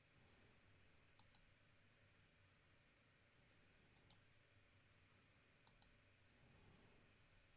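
Near silence broken by three faint double clicks, a computer mouse being clicked.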